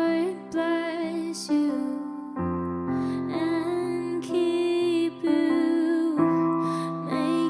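Slow worship song: a singer holds wavering sung notes over sustained piano or keyboard chords, with the chord changing every second or two.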